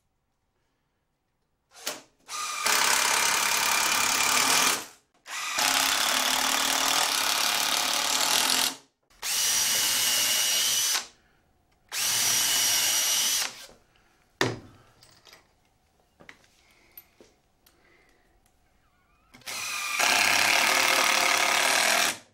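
Cordless impact driver sinking screws into 2x4 lumber: five runs of a few seconds each, with short pauses and small clicks and a knock between them.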